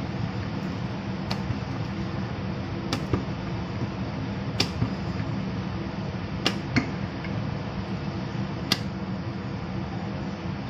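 Wooden rolling pin rolling out dough on a round rolling board, with sharp clicks and knocks every second or two as the pin and board tap and rock against the stone counter. Behind it is a steady low hum.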